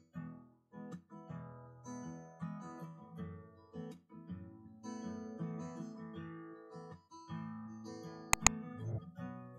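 Acoustic guitar background music, plucked and strummed notes. Near the end, two quick sharp clicks of a mouse-click sound effect.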